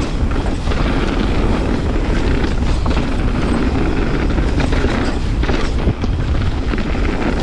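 Mountain bike riding on a dirt trail: a steady rushing rumble of wind on the microphone and tyres rolling over dirt, with scattered clicks and rattles from the bike going over bumps.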